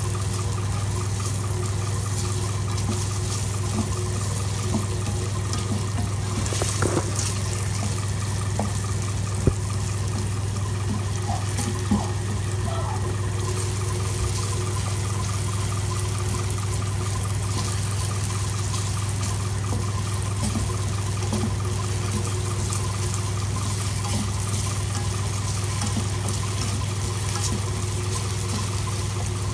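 Diced raw potato frying in oil in a non-stick pan: a steady sizzle, with a few short clicks of the plastic spatula, two of them sharper about nine and a half and twelve seconds in. A steady low hum runs underneath.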